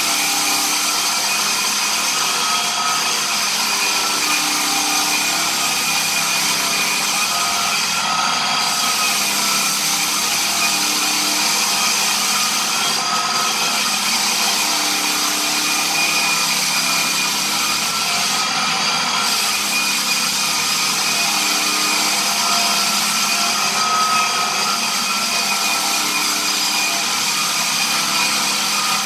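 Lägler Hummel drum floor sander running steadily as it sands a red oak floor: a continuous machine hum with the hiss of abrasive on wood.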